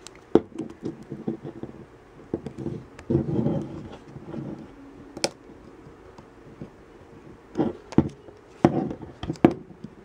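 Pry tool working along the seam of a Samsung Galaxy S4's plastic mid-frame, prising it from the screen assembly: irregular sharp clicks and knocks as the retaining clips snap loose and the handset is handled. There is a scraping stretch about three seconds in and a quick run of clicks near the end.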